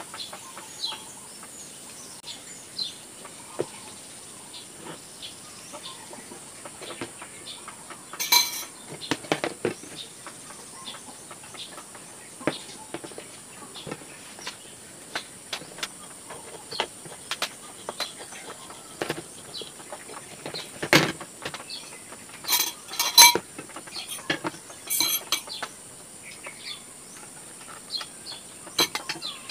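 Kitchen utensils and dishes clicking and clinking in an irregular scatter, with a few louder ringing metallic clinks.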